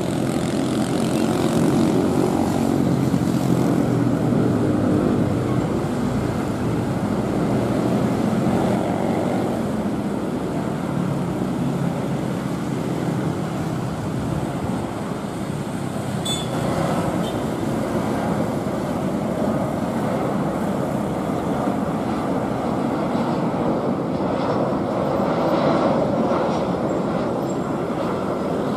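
Steady rumble of an Airbus A320-214's CFM56 jet engines as the airliner comes in on final approach with its landing gear down.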